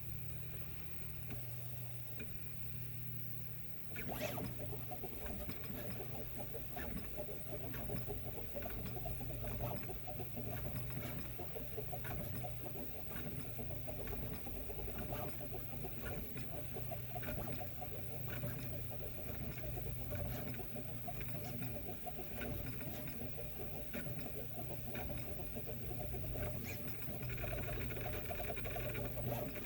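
Prusa MK3S 3D printer with a Bear frame running: a steady fan hum, and from about four seconds in a rapid, irregular chirping and clicking from the printer's moving axes. These are the odd noises the owner is asking about.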